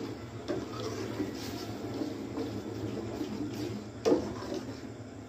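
A spoon stirring yogurt into a thick masala in a cooking pot: irregular wet, squelching liquid sounds, with one sharp knock about four seconds in.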